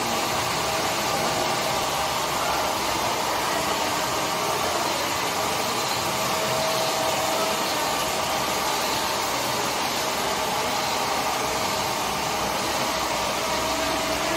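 Solar-powered multi-spindle charkha running: a steady whir of its motor and spinning spindles, with a faint steady hum on top.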